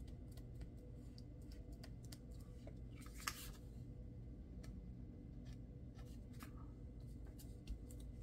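Hands pressing and rubbing glued paper pieces down onto a paper tag: faint paper rustles and small taps, with a brief louder rustle as the tag is handled about three seconds in. A low steady hum runs underneath.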